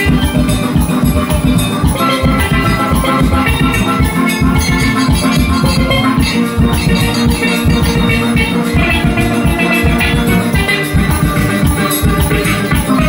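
Steel band playing: steel pans carry a melody and chords over a fast, steady drum-and-percussion rhythm.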